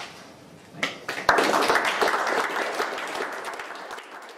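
Audience applauding, starting suddenly about a second in and slowly dying away near the end; a few short clicks and a rustle of papers at the lectern come just before it.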